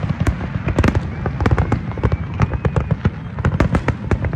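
Big fireworks display: a rapid, continuous barrage of bangs and crackles, many per second, over a steady low rumble.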